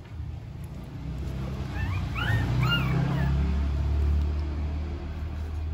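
Newborn puppy whimpering: three or four short, high squeaks, each rising then falling, about two seconds in.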